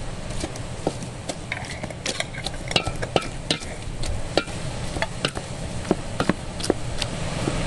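Irregular light clicks and taps, several a second, some with a brief ring, over a steady low rumble.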